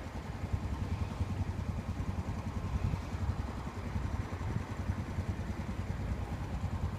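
Road vehicle engines running at a level crossing, a steady low rumble.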